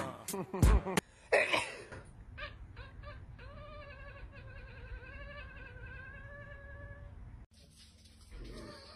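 Ginger cat yowling: one long, drawn-out call with a wavering pitch lasting several seconds, after a few loud short sounds at the start.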